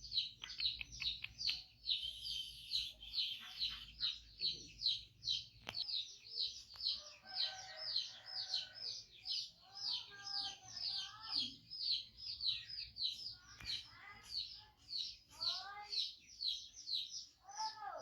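A bird chirping over and over in a fast, steady rhythm, about three high chirps a second, with a few lower calls mixed in.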